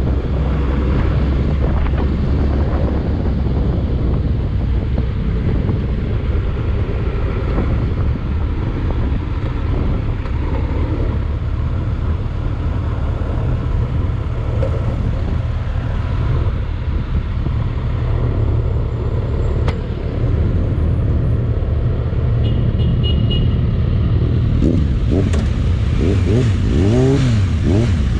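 A road vehicle under way, heard from on board: a steady low engine-and-road rumble with rushing noise over it. Near the end the engine's pitch rises and falls as it revs.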